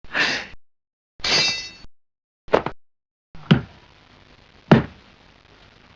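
A string of separate kung fu fight sound effects with gaps between them: short noisy swishing bursts, one with a ringing metallic clang, then quick strikes, the two heaviest with a deep thud in the second half.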